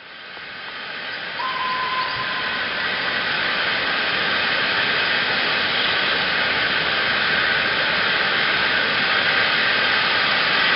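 LNWR Webb 'Coal Tank' 0-6-2T steam locomotive standing with steam blowing off, a loud, steady hiss of escaping steam that builds over the first second or two. A short faint steady tone sounds about a second and a half in.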